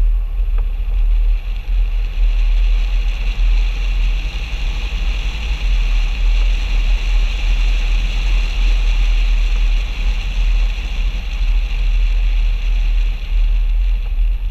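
Mercedes-Benz ML350 BlueTec SUV driving steadily on a paved road, heard from a bonnet-mounted camera: heavy wind rumble on the microphone over an even hiss of tyre and road noise.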